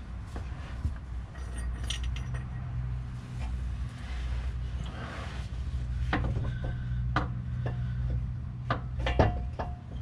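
Hand tools and metal parts clinking under a car during power steering rack work: a run of sharp metallic clinks, mostly in the second half, one ringing briefly near the end. A steady low hum runs underneath.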